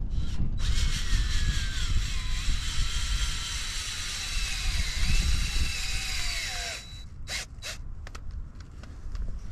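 A power drill running for about six seconds, its whine sagging and rising in pitch as the load changes, then stopping, followed by a few sharp clicks. Wind rumble on the microphone underneath.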